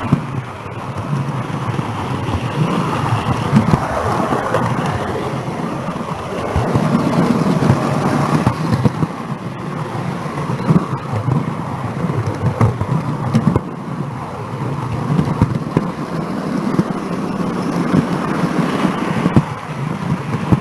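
Model railway train running along the track, its wheels and motor giving a steady rumble with a few sharp clicks, heard from a camera truck riding in the train.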